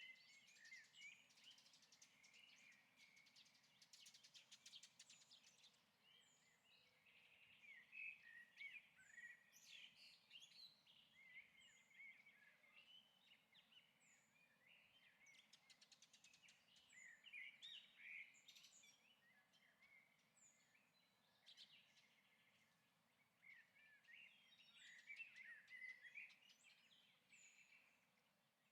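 Faint birdsong: bouts of short chirps and twitters with quick falling high notes, coming and going every few seconds.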